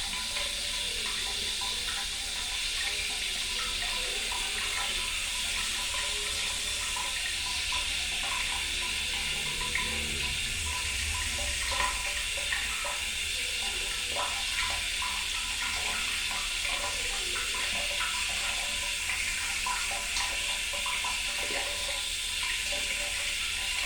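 Running water, a steady trickling and splashing like a tap running into a sink.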